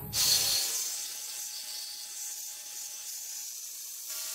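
Power saw cutting through the Tacoma's steel frame cross member: a steady, hissy rasp that starts suddenly and eases off slightly, with a faint steady whine underneath.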